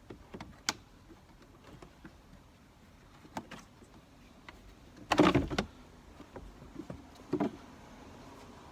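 Plastic interior trim cover being pulled off from below: a few small clicks, then a loud scraping clatter about five seconds in and a shorter one about two seconds later.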